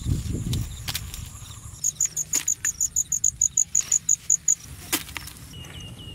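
An insect chirping in a fast, even series of high-pitched pulses, about six a second, starting about two seconds in and lasting about two and a half seconds. Corn leaves rustle briefly as a hand parts them at the start.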